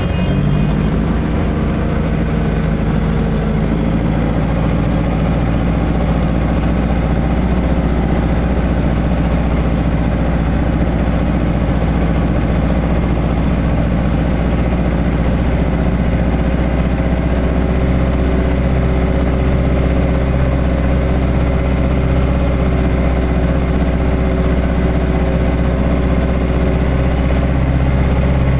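Landini Blizzard 95 tractor's diesel engine running steadily, pulling a furrow press.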